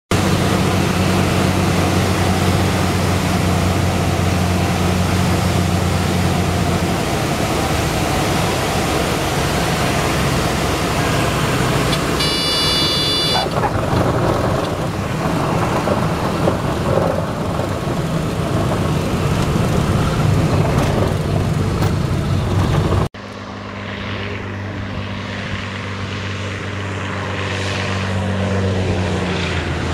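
Single-engine Cessna's piston engine and propeller droning inside the cabin on the landing approach, the engine note changing about 7 s in as power comes back, with a brief high warning tone around 12 s. After a sudden cut, a single-engine plane's engine and propeller drone is heard from outside beside the runway, its pitch gliding as it approaches.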